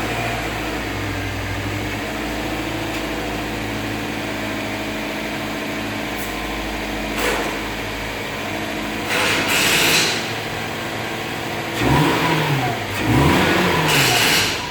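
Subaru flat-four engine running at a slightly high cold idle, steady and even with no misfire after its blown ECU injector driver was fixed. It is revved up and down twice near the end.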